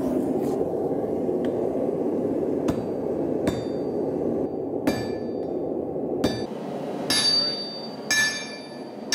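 Sledgehammer blows on a handled punch held against red-hot iron on an anvil: about six strikes roughly a second apart, the later ones with a bright metallic ring. A steady roar runs underneath and drops away about six seconds in.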